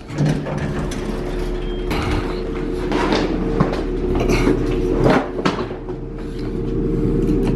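A vehicle running: a steady hum with irregular knocks and rattles over it.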